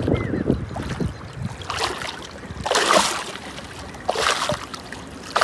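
Water splashing in a few short surges, with wind rumbling on the microphone at the start.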